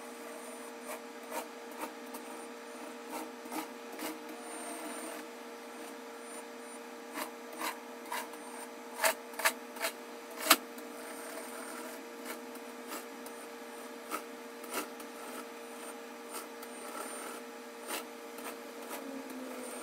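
Elephant Robotics myAGV robot platform driving over a wooden floor: a steady motor whine under a scraping, rubbing rattle from its mecanum wheels. Scattered clicks and knocks run through it, the loudest about ten seconds in.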